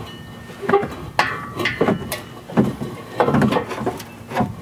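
Exhaust hanger pliers working the hanger peg of a 2012–2015 Honda Civic's loose, broken-off muffler out of its rubber isolator. The result is a string of irregular metal clicks, knocks and brief scrapes as the pliers and the muffler shift against the hanger.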